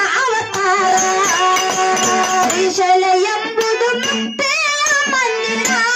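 Kannada devotional bhajan: a woman's voice singing over drum accompaniment, with a girl's voice taking up the singing about four seconds in.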